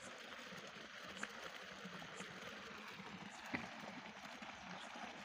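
Faint steady outdoor hiss with a few soft ticks.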